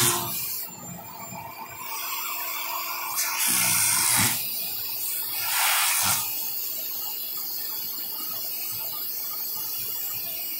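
Vacuum cleaner running, a steady hissing rush of air through the hose nozzle. It swells louder twice, about three seconds in and again around six seconds, as a monkey's lips are sucked against the nozzle and pulled away.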